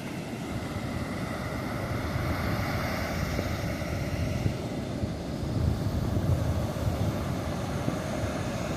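Wind buffeting the microphone with a gusty low rumble, over a steady hiss of ocean surf.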